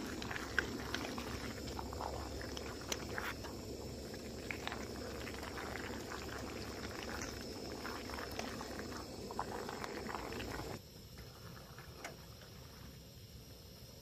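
Pot of braised chicken sauce simmering, bubbling with many small pops and crackles. About eleven seconds in the bubbling sound drops off abruptly, leaving a quieter hiss.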